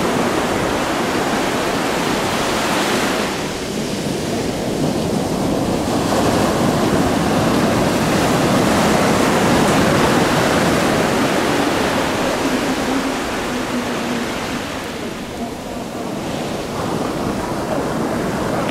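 Sea surf breaking and washing over the shore: a loud, steady rush of waves and foam that eases off twice and swells again.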